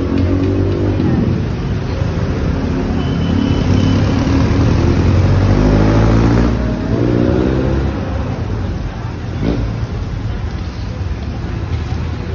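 City street traffic: motor vehicle engines accelerating past, their pitch rising and falling through the first seven seconds or so, then a steadier traffic rumble.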